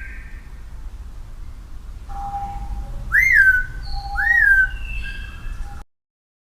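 An animal's whistle-like calls: the tail of one at the start, then two more about a second apart in the middle, each sweeping up and sliding down into a short held note. They sit over a low rumbling background and cut off suddenly near the end.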